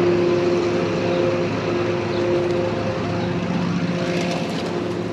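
Tractor engine running at a steady speed, an even hum that holds one pitch.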